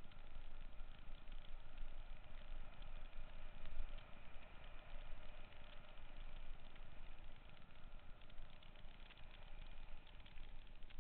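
Mountain bike being ridden over a rough dirt trail: steady tyre rolling noise with a constant patter of small rattles and clicks from the bike, and a low rumble of wind and handling on the mounted camera.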